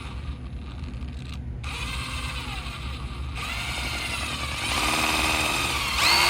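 Power drill spinning a socket for cleaning, run at a low, changing speed so its whine wanders in pitch. It grows louder about four and a half seconds in and jumps to full speed right at the end.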